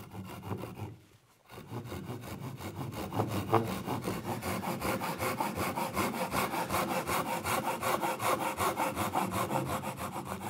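Hand crosscut saw cutting across a wooden board for the shoulder of a half-lap joint. It starts with a few light strokes to begin the kerf, then settles into quick, even back-and-forth strokes.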